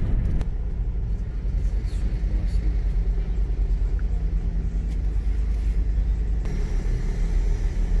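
Steady low rumble of a car being driven: engine and road noise.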